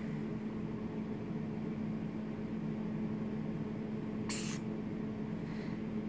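Steady mechanical hum of room machinery, with one brief soft rustle about four seconds in.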